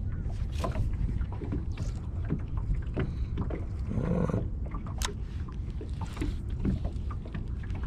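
Background noise on a fishing boat: a steady low rumble, with scattered light clicks and knocks from gear being handled.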